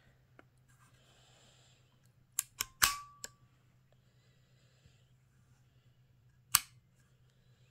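Weihrauch HW75 air pistol's hammer and trigger mechanism clicking as it is cocked and dry fired: a quick run of sharp metal clicks about two and a half seconds in, the loudest with a brief ring, then one single sharp click about six and a half seconds in.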